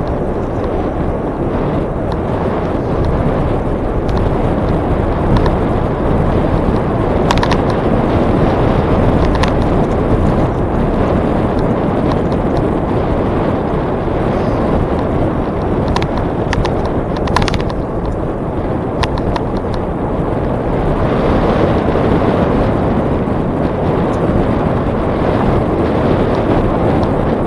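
Wind buffeting the microphone of a camera riding along on a moving bicycle: a steady loud rumble, with a few faint clicks and ticks from the bike now and then.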